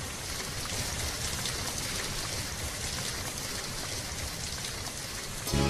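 Steady rain falling, an even hiss with scattered drops pattering. Near the end, music starts abruptly and is louder than the rain.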